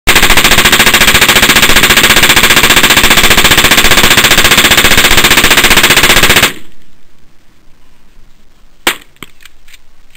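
Full-auto converted AR-15 rifle firing one long unbroken burst from a Beta C 100-round drum magazine. The fire stops about six and a half seconds in, and a few sharp clicks follow.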